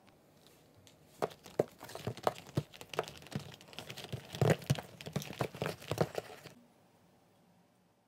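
Hand rummaging through a cardboard box of mandarin oranges: about five seconds of irregular knocks and rustles as the fruit is shifted against each other and the box, starting about a second in.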